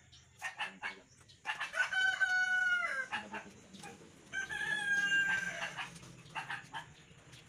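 Rooster crowing twice, each crow a held call of about a second and a half, the first dropping in pitch at its end.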